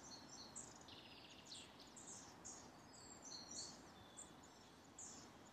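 Faint woodland birdsong: many short, high chirps and twitters from several small birds, over a soft steady hiss.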